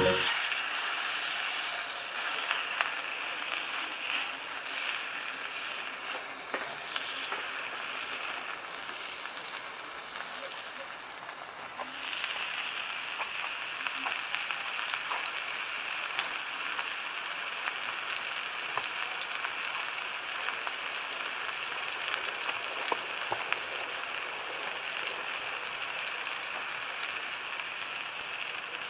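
Food sizzling and crackling in a frying pan over wood-pellet embers. The sizzle grows louder and steadier about twelve seconds in.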